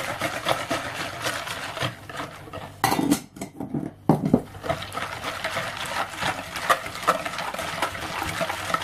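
Pumpkin and sunflower seeds rattling as they are poured into a plastic mixing bowl, with a couple of low knocks about three to four seconds in. Then a wire whisk stirs the wet seed mixture, clicking steadily against the bowl.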